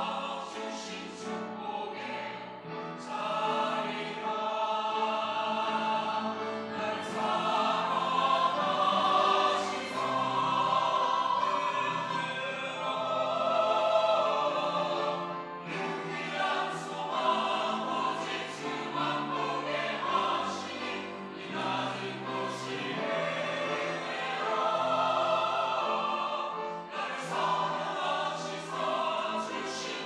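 Mixed church choir of women's and men's voices singing a sacred anthem in harmony, in swelling phrases with a short break about halfway through.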